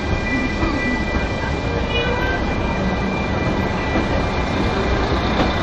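Narrow-gauge passenger train running slowly on its rails, heard from an open carriage window: a steady rumble of wheels and carriage, with a thin high tone that fades out about halfway through.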